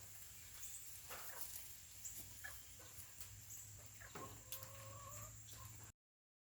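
Serama chickens clucking faintly, with short calls scattered through and one longer, drawn-out call about four seconds in. The sound cuts off suddenly near the end.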